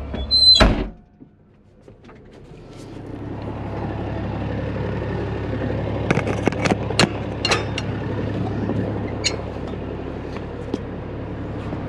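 Cab doors of a Caterpillar D6 dozer being shut and latched: a loud slam about half a second in, then a run of sharp clicks and knocks from the latches and handles a few seconds later, over a steady low engine hum.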